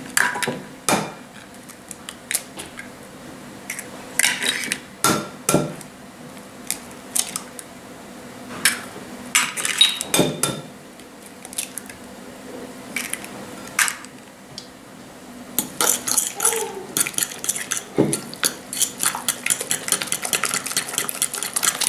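Eggs cracked into a glass bowl of leftover spaghetti: scattered sharp taps and clicks of shell and fingers on the glass. From about two-thirds in, a fast run of clicks as the eggs and pasta are mixed in the bowl.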